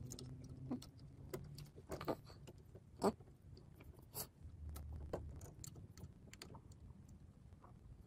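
Faint, irregular clicks and scrapes of fingers handling an old toggle light switch and its wires, working the wire hooks loose from the terminal screws, with one sharper click about three seconds in.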